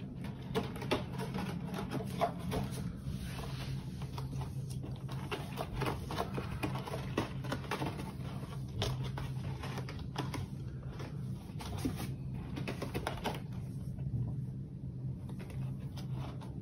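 A cat working at a corrugated cardboard scratch pad sprinkled with catnip: a continuous run of dry scratching and rustling clicks from claws and fur on the cardboard. A steady low hum runs underneath.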